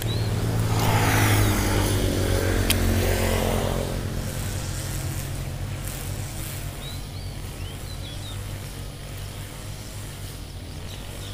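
A motor vehicle passes, its engine swelling over the first second or two and fading away by about four seconds in, with a steady low hum underneath. There is a single sharp click a little before the three-second mark.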